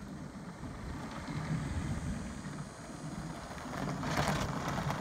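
Hunter WOLF six-wheeled unmanned ground vehicle running as it drives onto a sand ramp and starts to climb, a steady low hum. About four seconds in, a louder rush of noise comes in over it.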